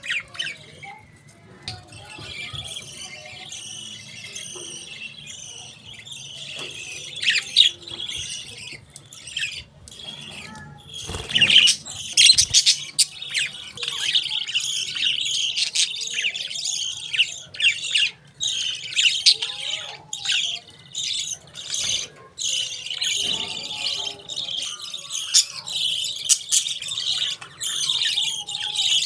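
Budgerigars chirping and chattering: a dense, continuous run of short, sharp chirps that gets louder about a third of the way in, over a faint steady low hum.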